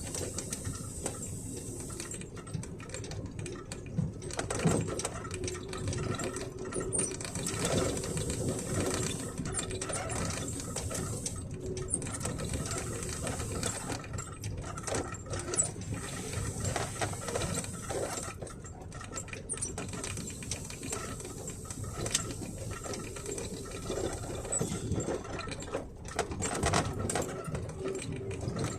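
Truck cab interior squeaking and rattling with dense, irregular creaks and clicks while driving on a rough road, over a steady low drone.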